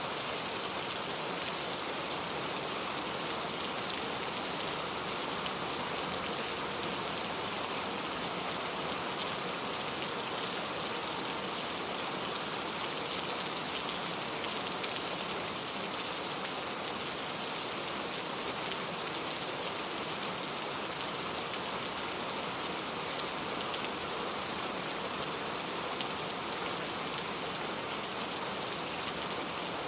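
Steady rain falling, a constant hiss made of many small drops striking a surface.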